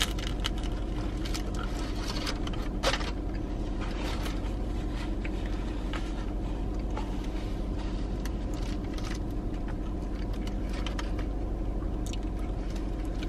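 Close-up chewing of a hard-crusted ciabatta sandwich and crinkling of its paper wrapper and napkin, with scattered sharp rustles and one louder one about three seconds in, over a steady low hum in the car cabin.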